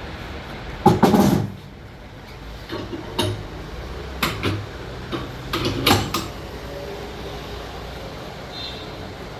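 A series of knocks and clunks: a loud one about a second in, then several smaller ones between about three and six seconds in, over a steady low background hum.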